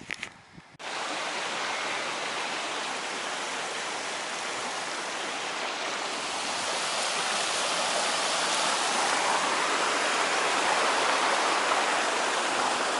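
A stream running: a steady rushing hiss of water that starts abruptly about a second in and grows slowly louder.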